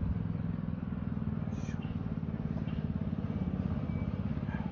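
A small engine running steadily, a low, fast, even pulsing.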